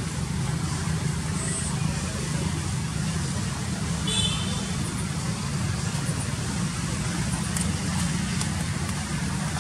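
Steady low outdoor rumble, like distant traffic, under a light hiss, with a short high-pitched chirp about four seconds in.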